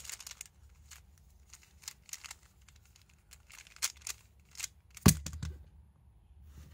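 Scattered light clicks and taps of hands handling a plastic speed cube and a speed-cube timer on a mat, with one loud thump about five seconds in.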